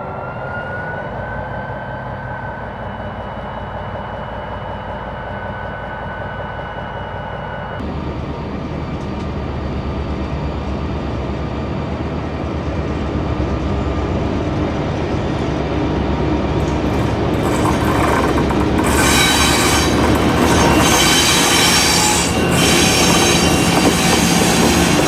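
EMD 20-645 two-stroke V20 diesel of an MZ-class locomotive under power, a whine rising and levelling off about two seconds in. After a cut, an MZ locomotive hauling a freight train approaches and passes, its engine drone growing steadily louder, with wheel squeal and clatter in the last several seconds.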